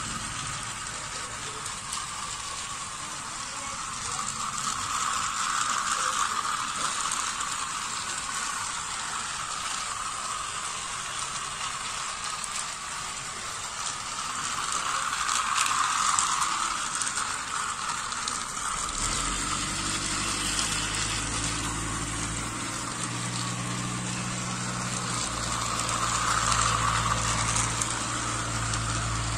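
Battery-powered toy trains running round plastic track: a steady whirring and rattle of small electric motors and plastic wheels, swelling louder about every ten seconds as a train passes close by. A low steady hum joins about two-thirds of the way through.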